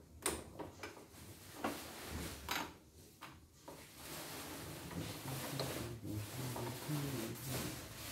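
Screwdriver and hands working on the plastic housing of a CNY E900 portable embroidery machine: a few sharp clicks in the first three seconds, then steadier rubbing and handling noise.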